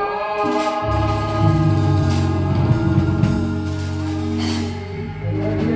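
Church band playing an instrumental passage: held organ chords over a bass line, with drums and cymbals.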